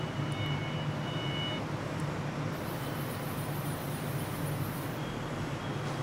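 CNC lathe running with a steady low hum during its first function test after power-up.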